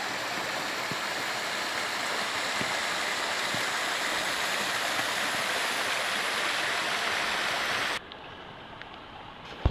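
Steady rush of spring water spilling over a small stone weir, with no change in pitch or level. It cuts off abruptly about eight seconds in, leaving a much quieter background.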